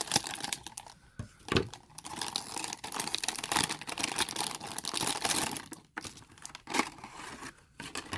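Blind-bag packaging being torn open and crinkled by hand, in an irregular run of rustling, tearing and crackling.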